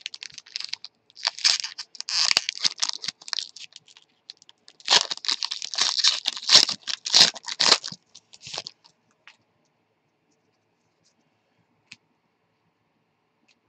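Foil wrapper of a trading-card pack crinkling and tearing as it is ripped open, in two bouts of about three seconds each.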